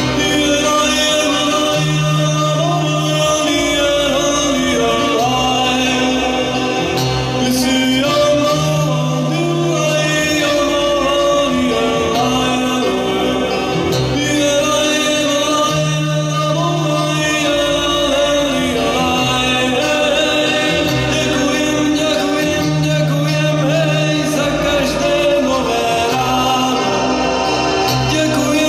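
A man singing a slow song to his own keyboard accompaniment, with held low bass notes that change about every two seconds under the voice.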